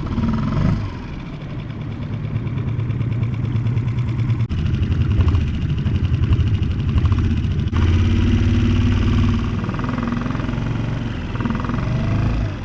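Small outboard motor running steadily, pushing an inflatable boat along, its engine note shifting a couple of times.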